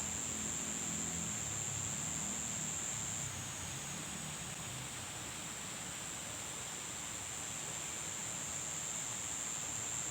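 A steady, high-pitched insect trill, one unbroken tone that weakens a little about three seconds in and comes back, over an even background hiss.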